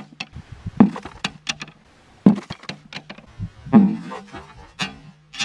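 Bamboo slats and sticks knocking and clacking in a string of sharp, separate knocks as a hinged bamboo trap grid is lifted and set over a hole, over a faint steady low hum.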